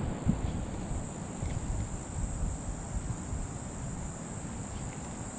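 Insects giving a steady, unbroken high-pitched drone, over a low rumble.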